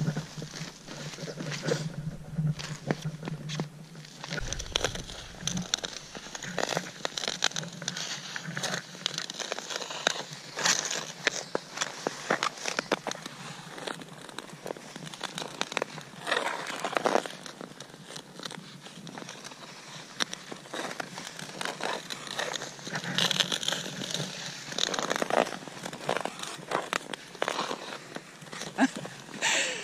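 Ice skate blades scraping and gliding on clear pond ice, a continuous run of irregular scratches and crackles that swell and fade with each stroke.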